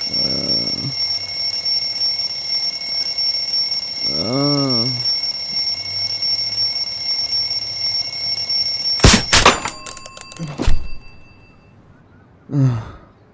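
Electronic alarm clock sounding a steady high tone, broken about nine seconds in by a few sharp knocks, after which the alarm stops. Short wordless vocal sounds from a person come and go over it.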